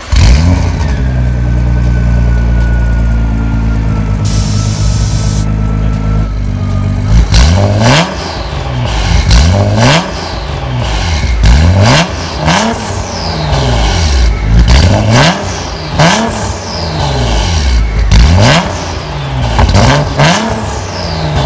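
Nissan GT-R R35's twin-turbo V6 running through a custom exhaust system: a steady idle for about seven seconds, then revved in repeated throttle blips, one about every two seconds.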